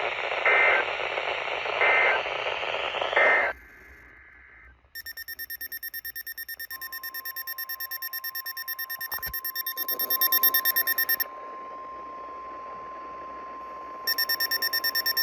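NOAA Weather Radio alert audio. Three short data bursts over radio static mark the end of one message. A few seconds later a receiver's rapid pulsing alarm beep starts, growing louder, and the steady 1050 Hz weather radio warning tone sounds under it, signalling that a new warning is coming.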